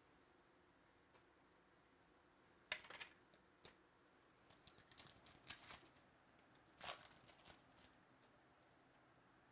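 Trading cards being handled and flipped through: a few soft clicks and flicks of card stock against card stock, mostly between about 3 and 7.5 seconds in, with near silence around them.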